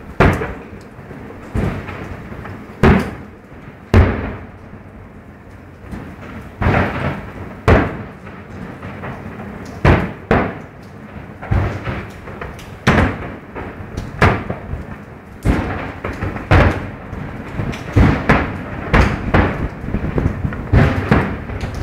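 Aerial firework shells bursting: a rapid, irregular series of booms, each followed by a short rolling echo, coming more thickly in the last few seconds.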